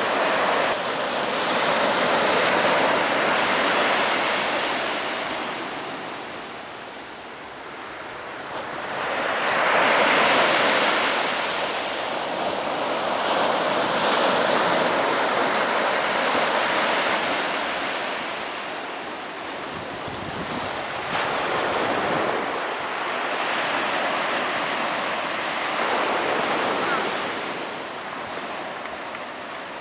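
Ocean waves breaking on a beach, the surf rising and falling in long surges every few seconds, the loudest about ten seconds in.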